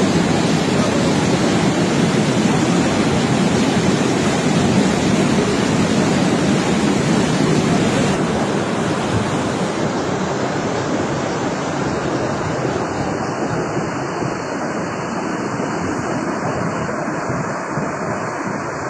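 Steady rushing of rain-swollen floodwater, a continuous loud roar of water that eases slightly about eight seconds in.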